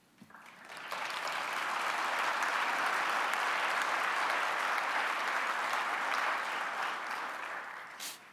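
Audience applauding, swelling up about a second in, holding steady, and dying away near the end.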